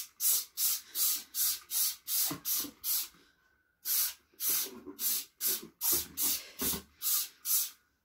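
Trigger spray bottle of bathroom cleaner squirted in quick repeated sprays, about three a second, onto plastic vacuum-cleaner parts, with a short pause about halfway through.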